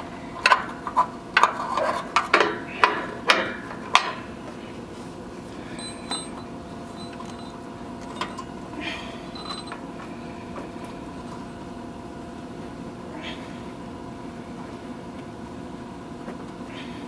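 A quick run of sharp knocks and clatter as a rubber drain hose and hand are worked up into the cramped underside of a standby generator's radiator and fan guard. After about four seconds it gives way to a steady background hum with a few faint ticks.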